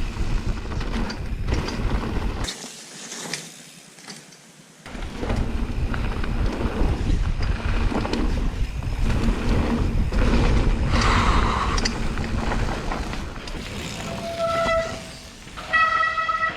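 Helmet- or bike-mounted action camera noise from a mountain bike descending a muddy trail: steady rumble and rattle of tyres, frame and wind buffeting, with two short high squeals near the end.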